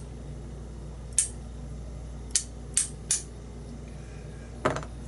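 Small sharp metal clicks from a pin-tumbler lock being taken apart, tools and lock pins tapping against the housing: five separate clicks, the last one near the end a little duller and longer.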